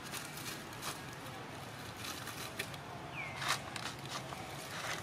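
Outdoor ambience with a steady hiss and scattered light rustles and clicks, the loudest about three and a half seconds in, and one short falling chirp just after three seconds.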